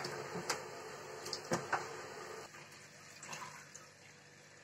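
Kitchen tap running into an enamel pot of boiled pasta as it is rinsed and stirred, with a few light clicks. The water stops about halfway through, leaving a few faint knocks.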